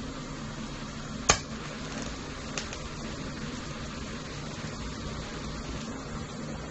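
TIG welding arc: a steady hiss over a low electrical hum while filler rod is fed into the weld. A single sharp click about a second in, and a fainter one a second later.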